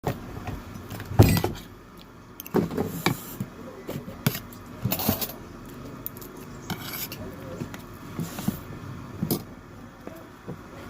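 Tableware being handled during a meal: a series of sharp clicks and knocks of utensils and dishes, the loudest about a second in.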